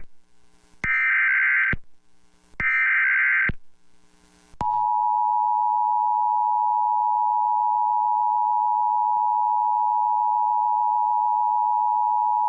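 Emergency Alert System broadcast tones. The tail of one harsh, buzzing SAME data burst is followed by two more bursts of about a second each, separated by short gaps. About four and a half seconds in, the steady two-tone attention signal begins and holds unbroken, marking the start of a severe thunderstorm warning.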